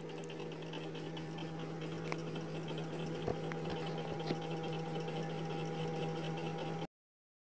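Chicken pieces deep-frying in hot oil: a quiet, steady sizzle over a steady low hum, with a few light clicks as metal tongs turn a drumstick. The sound cuts off abruptly near the end.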